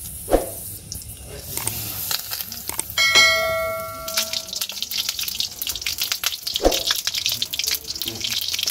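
Batter-dipped pumpkin flowers sizzling and crackling in hot oil in an iron wok, the crackle growing denser after about four seconds. A notification bell chime rings out about three seconds in and fades, and two sharp knocks sound, one near the start and one about two-thirds through.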